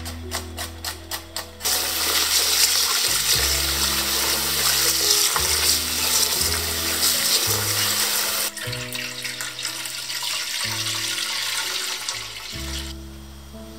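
Water swishing loudly as rice is washed by hand in a bowl, then a softer pouring of the cloudy rice-washing water into a pan about eight and a half seconds in. A run of quick regular ticks comes first, and music plays throughout.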